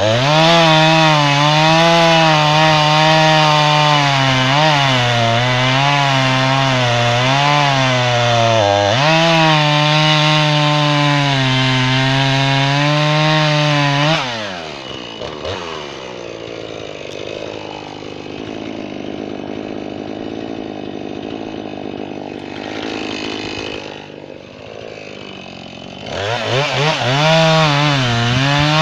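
Jonsered 2240 two-stroke chainsaw cutting red oak at full throttle, its pitch dipping and recovering as the chain bites, for about fourteen seconds. The throttle is then released and the engine falls to a low idle, before it revs back up near the end.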